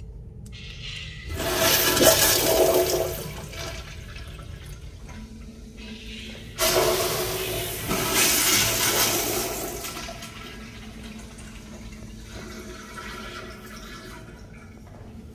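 Two Kohler Dexter urinals flushed one after the other by their flushometer valves, each a sudden rush of water. The first starts about a second in and lasts about two seconds. The second starts sharply about halfway through and tapers off over about three seconds.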